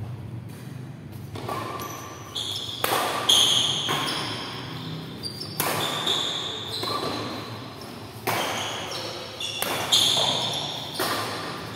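Rackets hitting a shuttlecock back and forth in a fast badminton doubles rally: about ten sharp hits, roughly one a second, each echoing in a large hall.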